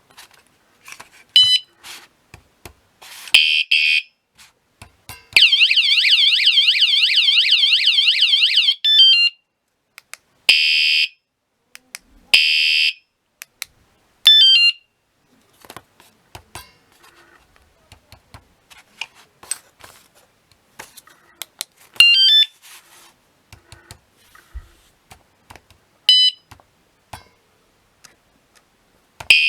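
Motorbike/bicycle anti-theft alarm sounding through its small siren. It gives short runs of stepped chirps and several brief high beeps, with a fast warbling alarm tone from about five to nine seconds in. Clicks come in between.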